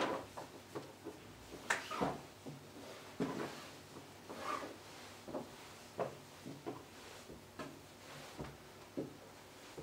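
Hands smoothing and handling a folded hand towel on a cloth-covered table: a run of soft, irregular brushing strokes and light knocks, the loudest a little under two seconds in.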